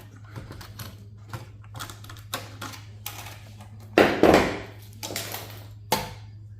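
Metal server parts clicking and clattering as a stuck component is worked and pulled by hand, with a loud rattling clatter about four seconds in and a sharp knock near the end, over a steady low hum.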